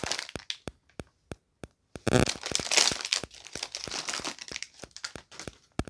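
Foil blind-bag wrapper crinkling as it is torn open by hand, with a louder, longer rip about two seconds in, then more crackling as the packet is handled.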